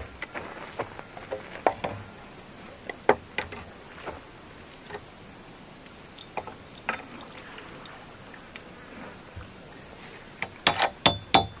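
Scattered light clicks and knocks at irregular intervals over a faint steady background, then near the end a quick run of rhythmic beats as music starts.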